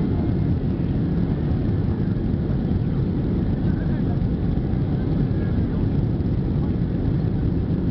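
Cabin noise inside a Boeing 767-300 climbing out after takeoff: a steady jet-engine and airflow rumble, heaviest in the low range, heard from a window seat over the wing.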